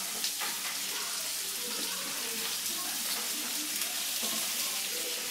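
Sliced tomato, onion and garlic sizzling steadily in olive oil in a frying pan over a gas flame, with a few light taps of the spoon stirring them.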